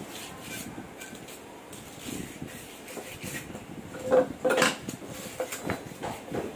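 Metal clinks and knocks of a screwdriver working against a propeller-shaft yoke and cross-joint (universal joint) parts, with two louder ringing metallic knocks about four seconds in.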